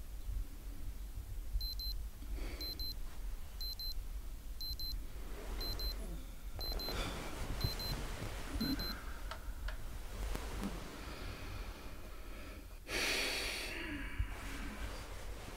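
Digital alarm clock beeping: pairs of short high beeps about once a second, eight times, then stopping. Bedding rustles as someone turns over in bed, with a louder rustle of the covers near the end.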